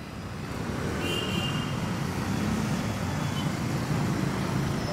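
Steady city street traffic noise, a low rumble of motor vehicles, fading in over the first second, with a brief high tone about a second in.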